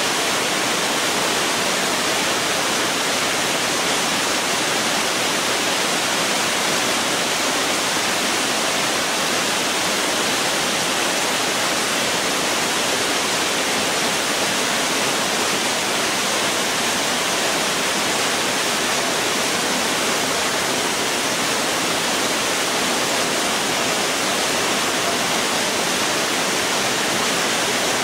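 Heavy rain falling steadily: an even, unbroken hiss of a downpour, with no thunderclaps.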